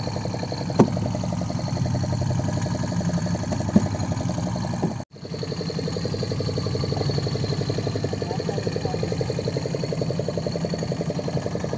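Fishing boat's engine idling with a steady, rapid beat, with a couple of sharp knocks about one and four seconds in. The sound breaks off for an instant about five seconds in.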